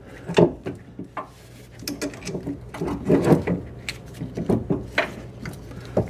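Irregular metal knocks, clunks and scrapes from an automotive AC compressor being handled and worked up into its mounting bracket in the engine bay.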